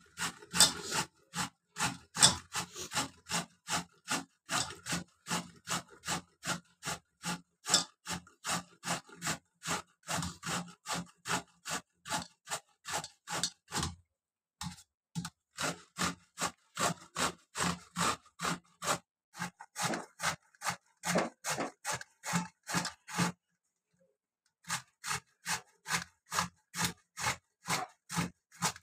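Bottle gourd being grated on a stainless steel box grater: rhythmic scraping strokes at about three a second, with two short pauses, once about halfway through and again near the end.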